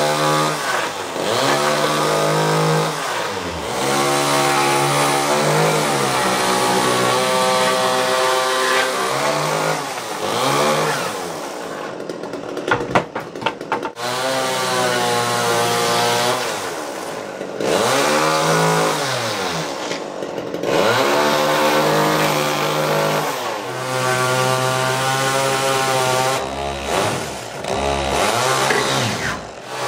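Chainsaw cutting a window opening, its engine revving up and dropping back low again and again. A couple of seconds around the middle are choppy and uneven.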